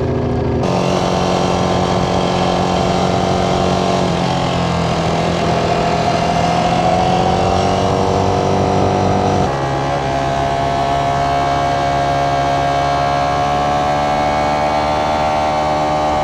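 Ducati Panigale V4 superbike's V4 engine pulling under acceleration, upshifting a few times: the pitch drops at each shift and then climbs again between them.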